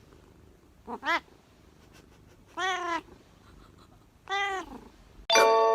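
A cat meowing, three calls a second or two apart, the middle one the longest. Just before the end a bright ringing chime starts.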